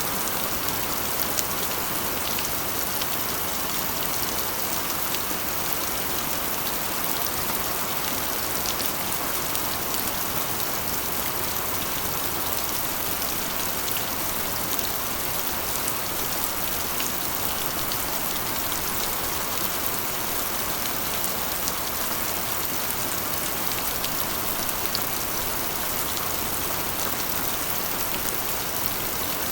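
Steady rain on a corrugated iron roof: an even hiss, with the ticks of single drops striking the metal sheets.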